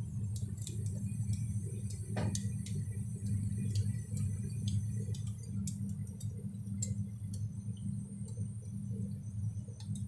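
Water jet spraying onto a refrigerator's iced-up evaporator coil to wash the ice off, with scattered sharp ticks of ice and drips over a steady low hum. The ice packed on the coil is blocking the airflow, so the fridge is not cooling.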